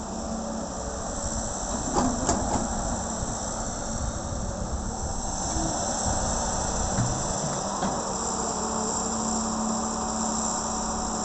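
John Deere 595D wheeled excavator's diesel engine running steadily under hydraulic load while it swings, dumps and digs, with a steady high hiss over it. A few sharp knocks about two seconds in.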